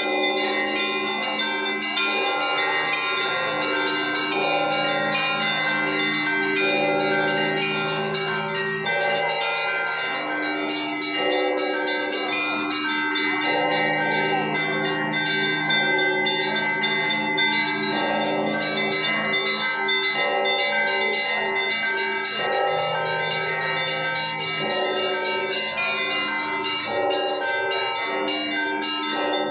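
Russian Orthodox church bells ringing a peal: several bells of different pitch struck together over and over in a steady repeating pattern, their tones ringing on and overlapping.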